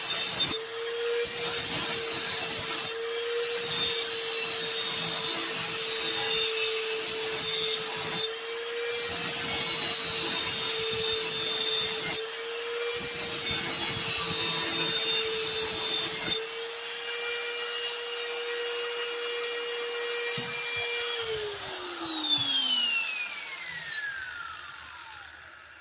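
Electric grinder sharpening the edge of a steel lawn mower blade: a steady motor whine under the hiss of the wheel grinding the metal, with a few brief breaks. About 21 s in the grinding stops, and the motor winds down with a falling whine.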